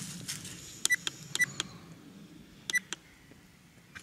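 Trail camera's button presses, each giving a short electronic beep with a click, a few times as its stored pictures are scrolled through.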